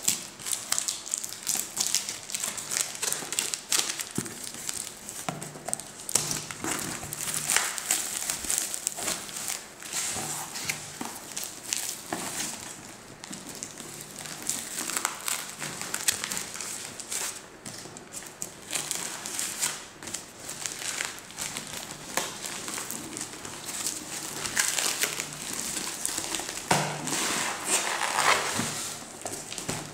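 A cardboard shipping box and bubble wrap being handled and pulled apart by hand: irregular crinkling and rustling with many small crackles.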